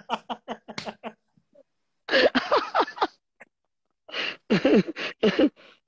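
Men laughing hard: a quick run of short laughs in the first second, then two more bursts of laughter with falling pitch, about two and four seconds in.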